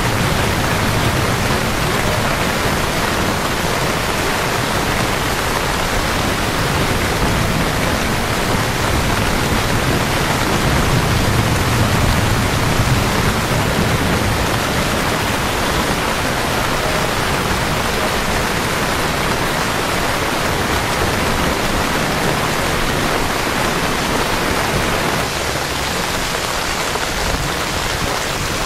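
Heavy rain pouring onto streets and pavements, a steady even hiss that eases slightly near the end.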